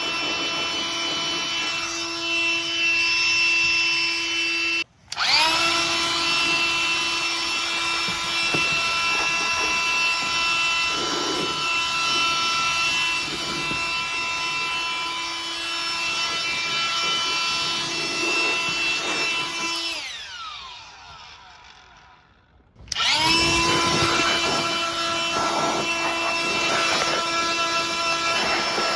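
Ryobi blower running steadily with a whining motor, blowing dust off an ATV. It cuts out for a moment about five seconds in and spins back up, then winds down near the end to a brief stop before spinning up again.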